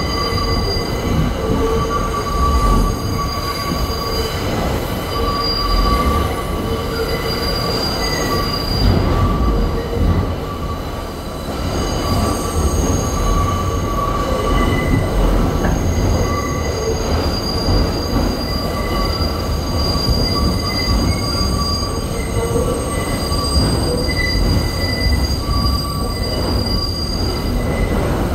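A New York City Subway 1 train rounding the tight South Ferry loop, heard from inside the car. The wheels rumble steadily, and a high-pitched wheel squeal from the sharp curve swells and fades repeatedly.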